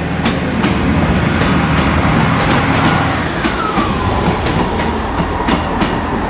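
Northern Class 158 diesel multiple unit running past at a platform: a diesel engine drone, wheels clicking over rail joints, and a whine that falls in pitch about halfway through and then holds steady.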